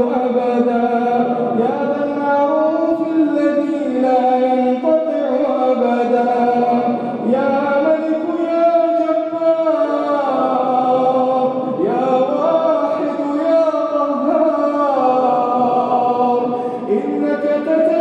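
Arabic supplication (du'a) chanted in long, melodic held phrases that slide up and down in pitch, with brief breaks every few seconds.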